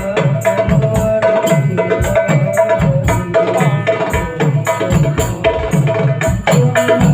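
Hadroh ensemble playing: hand-struck frame drums and a deep bass drum beating a steady rhythm, with deep thumps about twice a second, under a sustained melody line.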